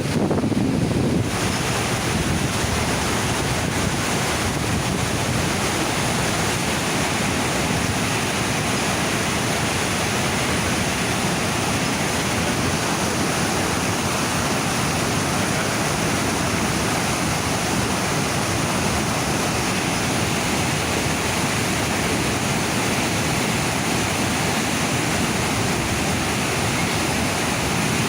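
Steady rushing of the Niagara River's rapids just above the falls: a dense, unbroken wash of white water.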